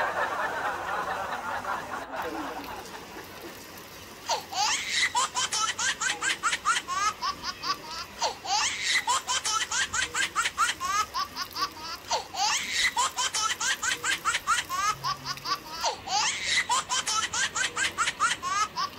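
Looped laughter sound effect: a high giggling laugh in rapid pulses, repeating the same roughly four-second burst four times. A fading rushing noise comes before it.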